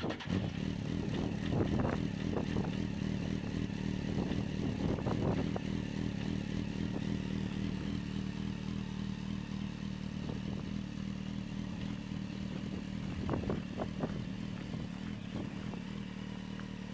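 Small microcar's engine idling steadily through its rear exhaust. A few short, sharp louder sounds cut in over it, about two and five seconds in and again around thirteen seconds.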